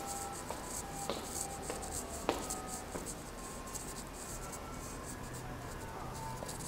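Footsteps on a hard stone floor, one step about every half second, fading after about three seconds, under a steady scratchy rustle.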